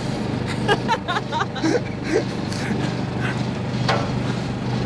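A boat's engine running at a steady low hum. Faint voices sound over it in the first couple of seconds.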